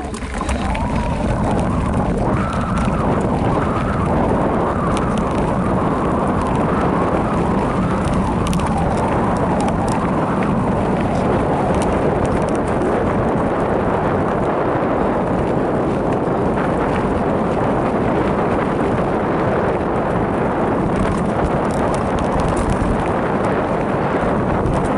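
Specialized Rockhopper Comp hardtail mountain bike descending a rough dirt trail: a steady loud rush of tyre noise and wind over the microphone, with occasional sharp clicks and rattles from the bike over stones.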